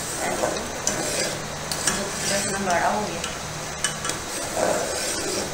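Metal ladle stirring thick daliya (cracked wheat in milk) in a steel pot: steady scraping and sloshing, with a few sharp clinks of the ladle against the pot.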